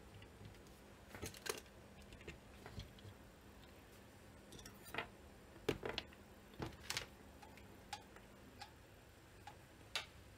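Scattered small clicks and light taps, irregularly spaced, from hands handling parts and tools on a workbench.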